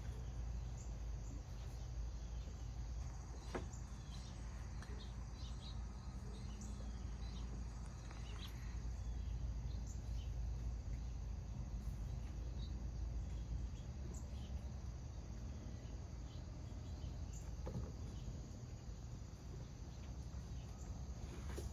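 Outdoor ambience: a steady high insect chorus over a low steady rumble, with scattered faint bird chirps and small clicks.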